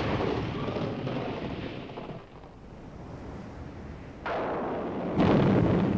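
Storm-at-sea sound effects: a noisy rush of crashing waves and wind that eases off about two seconds in, then surges back, with a loud low rumble about five seconds in.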